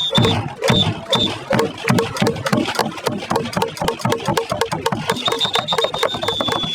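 Baseball stadium crowd clapping in a fast, even rhythm, about three beats a second, between chants of a player's name. A steady high tone sounds near the start and again from about five seconds in.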